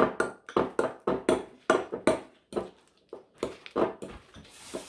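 Metal fork stirring and scraping against a small glass bowl while mixing soft herb butter: an irregular run of short scrapes and clinks, about two or three a second.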